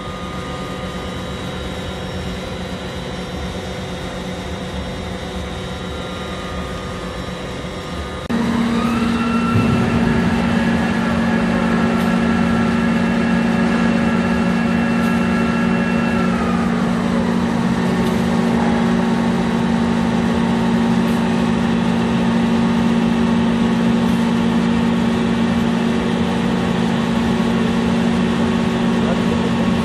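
Rotary friction welding machine running with a steady mechanical hum. About eight seconds in it jumps clearly louder, with a deeper hum and a rising whine, as the spinning part rubs against the fixed one and the joint heats red-hot. The whine glides back down near sixteen seconds in while the heavy hum carries on.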